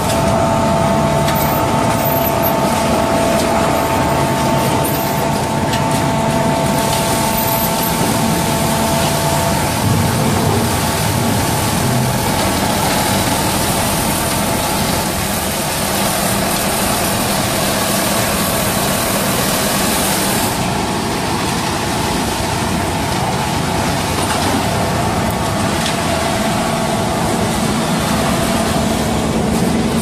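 Mobile concrete mixer-pump machine running steadily: a loud, even mechanical noise from its electric motor and turning mixing drum, with a steady whine through the first third.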